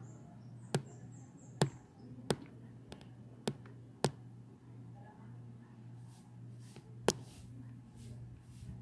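Six sharp, irregularly spaced clicks and taps over a steady low hum: handling noise from a hand-held camera being fumbled with to switch it off, with a faint rustle in the second half.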